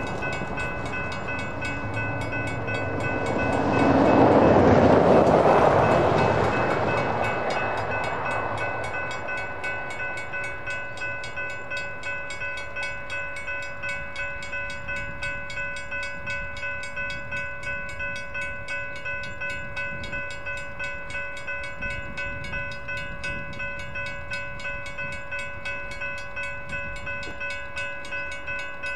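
Railroad crossing signal bells ringing in rapid, even strikes: a GS Type 3 electronic bell on the near signal with a WRRS mechanical bell on the far one. A broad rushing sound swells and fades about four to six seconds in.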